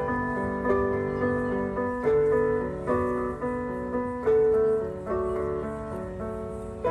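Grand piano being played: a melody with accompanying chords, notes struck about twice a second, each ringing and fading before the next.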